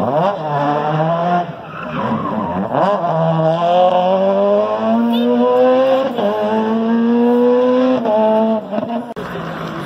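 Rally car engine under hard acceleration, its pitch climbing and dropping back at each gear change several times. The sound cuts off abruptly near the end.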